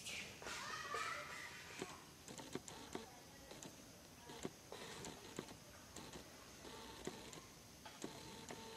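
A macaque gives a brief squealing call in the first second. Faint, irregular light clicks and taps follow.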